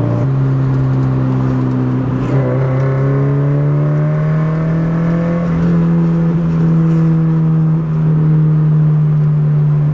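Subaru BRZ's flat-four boxer engine and its newly repaired aftermarket exhaust droning steadily inside the cabin while driving. The pitch rises gently over a few seconds as the car accelerates, then holds steady at cruising speed.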